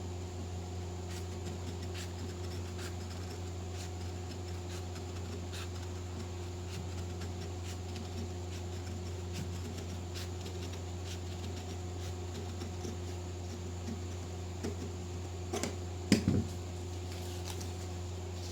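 Tailor's scissors cutting out a marked collar band, heard as faint, scattered snips and scrapes over a steady low electrical hum, with a few louder knocks on the table about three-quarters of the way through.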